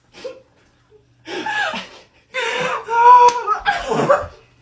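People laughing hard in several bursts, one of them a long held cry, with a single sharp smack a little past halfway through.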